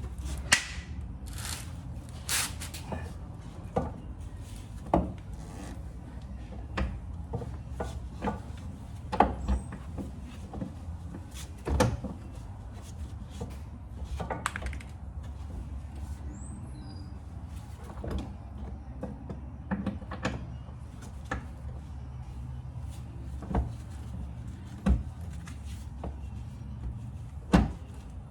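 Irregular knocks and clinks of hand tools and metal parts while working on the rear shock mounting, a sharp hit every second or so, over a low steady rumble.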